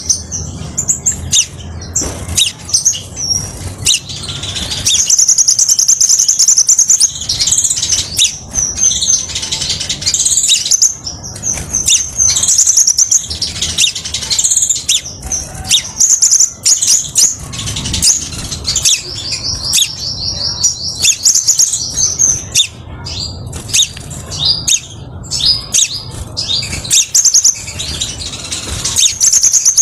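Male crimson sunbird singing: a clear, loud, high-pitched run of sharp chirps and rapid trills, with longer even trills about five seconds in and again around twenty seconds.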